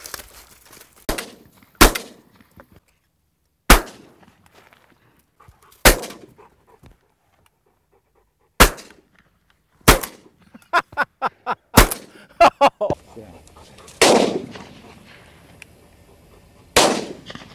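Shotgun blasts at passing doves: about ten shots at irregular intervals, some close together, a few with a long echoing tail.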